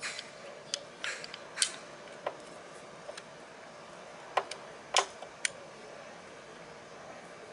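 Scattered light metallic clicks and knocks as a Daelim S300 scooter's front brake caliper is handled and worked off the brake disc by hand. The loudest knock comes about five seconds in.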